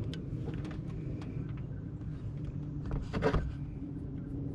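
Hand work on the AC compressor clutch: scattered light clicks of parts and tools being handled, and one louder clatter about three seconds in, over a steady low hum.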